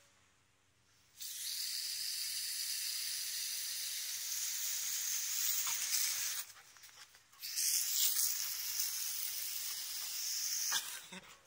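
Garden hose spraying a jet of water, a steady hiss that starts about a second in, breaks off for about a second midway, then comes back and stops near the end.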